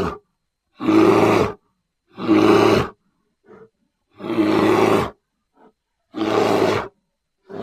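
Animal call sound effect standing in for the extinct Florida spectacled bear: a string of loud calls, each just under a second long, coming about every second and a half with silence between, and two faint brief sounds in the gaps.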